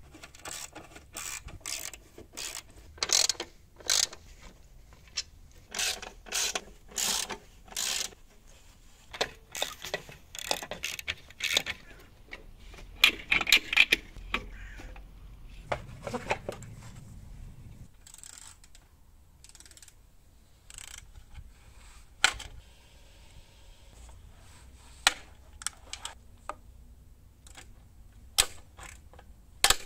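Hand tools and loosened steel fittings on an old Ural motorcycle clicking and clinking as parts are unbolted, in quick clusters at first and then as scattered sharp metal knocks.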